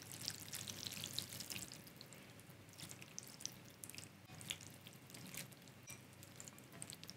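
Faint, scattered wet drips and soft clicks as wooden chopsticks lift ramen noodles out of a pot of broth, the noodles and broth dripping back into the pot and into a bowl.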